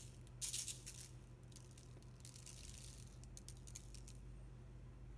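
Salt shaker being shaken over raw steak and vegetables: a faint rattling hiss of falling grains in several short shakes.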